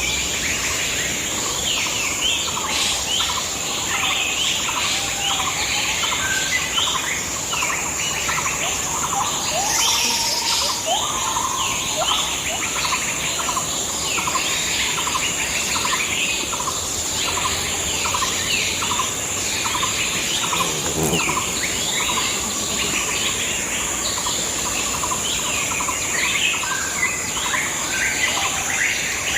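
Several birds chirping and calling over one another with many short, repeated falling notes, over a steady high-pitched hiss or drone.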